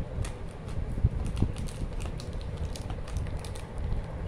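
Chocolate bar wrappers crinkling and crackling in irregular clicks as the bars are handled and lifted out of a plastic tray, over a steady low rumble.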